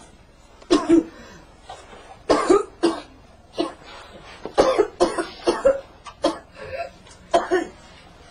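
A person coughing hard, about a dozen harsh coughs in several fits with short pauses between them.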